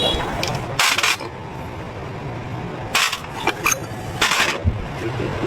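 Metal tools and parts clinking and knocking as they are handled, in several short bursts.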